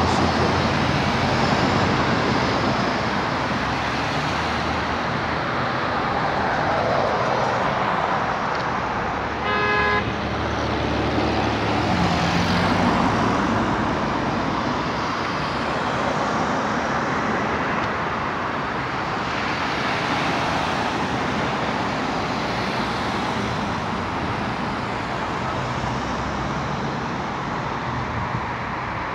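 Steady road traffic on a multi-lane street, cars passing close by, with one short car horn toot about ten seconds in.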